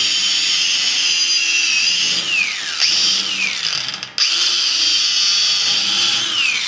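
Stark CAG 1800 cordless angle grinder spinning a wire cup brush against a steel angle with a high whine. It is pressed hard enough that its pitch sags several times as the motor is loaded down, and it briefly drops out about four seconds in before spinning up again.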